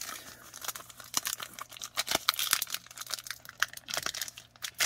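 Foil trading-card pack wrappers crinkling and cards rustling and clicking in the hands: an irregular stream of small crackles and ticks.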